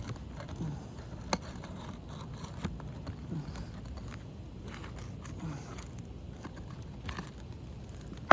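Scattered light scrapes and small clicks of asphalt roof shingles being worked loose and their nails pulled, part of a test of whether the shingles can be repaired.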